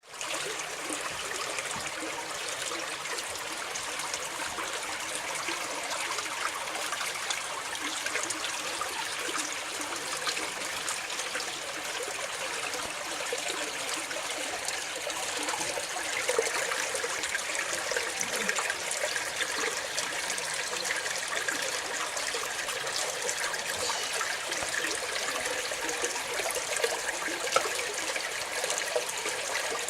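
Steady running water, trickling, growing slightly louder about halfway through.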